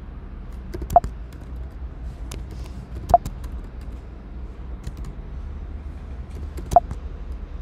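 Computer keyboard keystrokes: a few sharp key clicks about a second in, about three seconds in and near the end, with fainter taps between them, over a low steady hum.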